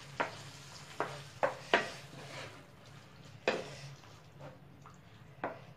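A wooden spatula stirring sauce in a non-stick frying pan, with about six short knocks against the pan at uneven intervals.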